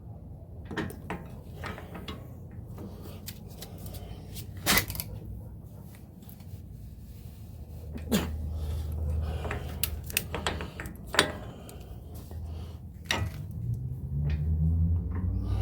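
Scattered metallic clicks and clanks of hand tools on a Jeep front axle hub as a large axle nut is being torqued, over a low steady hum.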